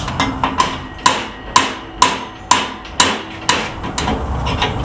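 A hammer striking a cold chisel, about ten sharp metal-on-metal blows at roughly two a second, each with a short ring. The chisel is wedged between the old ball joint and a 1977 Chevy El Camino's front upper A-arm to break the ball joint free.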